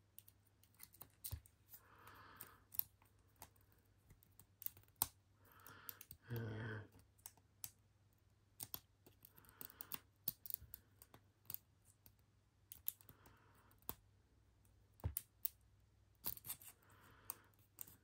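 Faint, irregular clicks and light scraping of a lock pick and tension wrench working the pins inside a laminated padlock's keyway, with soft breaths or sniffs every few seconds.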